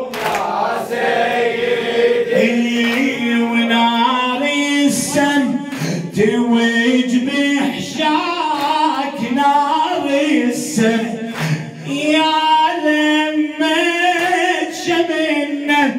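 A male reciter chanting an unaccompanied Shia mourning lament (latmiya), with a group of men's voices joining in. It is punctuated by regular slaps of open palms on chests as the congregation beats their chests in time.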